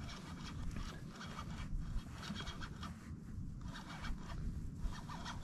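A fishing reel being cranked in short spells of about a second with pauses between, reeling a hooked walleye up through the ice hole, over a steady low rumble.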